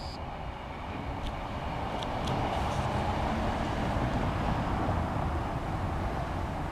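A car driving past at the level crossing, its tyre and engine noise swelling to a peak about four seconds in and then easing off, over the low rumble of an Enshu Railway train pulling away.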